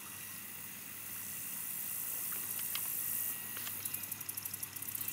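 A high-pitched chorus of night insects in the swamp: a steady hiss that turns into a fast, pulsing trill from about halfway in. There are a few faint clicks, and a low steady hum runs underneath.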